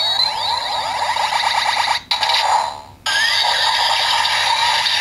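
CSM Double Driver toy transformation belt playing electronic sound effects through its small speaker: warbling, sweeping tones with nothing deep in them, cutting out briefly about two seconds in and again about three seconds in.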